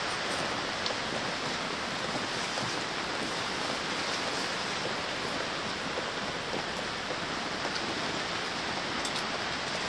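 Steady rain falling on the tent's fabric roof, heard from inside, with a few faint ticks of single drops.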